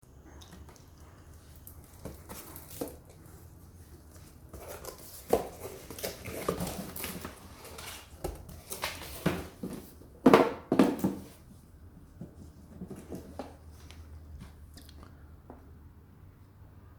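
Shipping envelope and packaging handled and opened by hand: irregular crinkling and rustling with sharp clicks, loudest about ten seconds in, then a few faint ticks.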